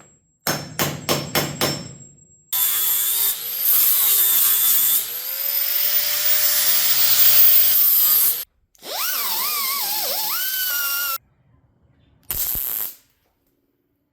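A quick run of five hammer strikes on sheet metal, then a hand-held power tool running for about six seconds with its pitch shifting. It stops, runs again for about two seconds with its pitch wavering, and gives one short burst near the end.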